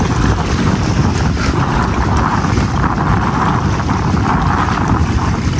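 Strong wind buffeting the microphone: a loud, steady low rumble with a hiss above it.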